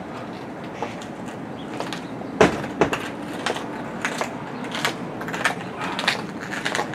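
Footsteps of a cyclist in cycling shoes on concrete, clicking about every two-thirds of a second in the second half, after a couple of sharp knocks about two and a half seconds in.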